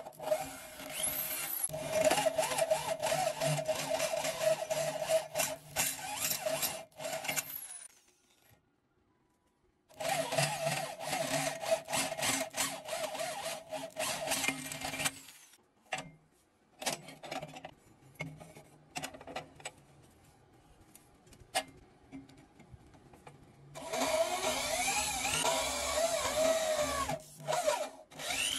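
Electric hand drill running in bursts as it drives a thread tap and a twist bit into steel square tube, its motor whine steady. A silent break comes about a third of the way in, and a quieter stretch of scattered clicks falls between the later runs. In the last run the whine rises and falls as the drill changes speed.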